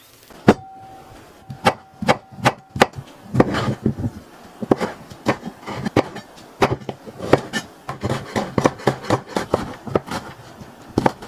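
Chef's knife chopping cucumber and cherry tomatoes on a bamboo cutting board: a run of sharp knocks as the blade strikes the board, a few a second and unevenly spaced, starting about half a second in.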